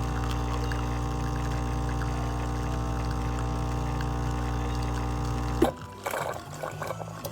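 Capresso Ultima Pro espresso machine's pump humming steadily as espresso pours into the cup, then cutting off sharply about five and a half seconds in at the end of the programmed one-cup shot. Faint irregular dripping and clinking sounds follow.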